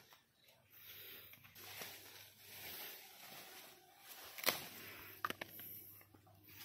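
Faint rustling of brinjal (eggplant) leaves as a hand works through the plants. About four and a half seconds in comes one sharp snap, followed by a couple of lighter clicks, as a brinjal is picked off its stalk.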